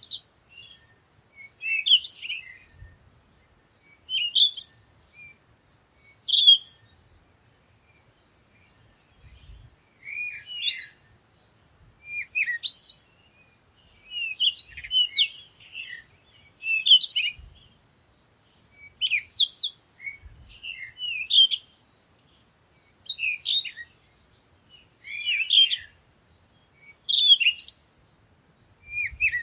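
Songbirds chirping in short, high phrases about every two seconds, with a pause of a few seconds about a quarter of the way in: a morning birdsong ambience.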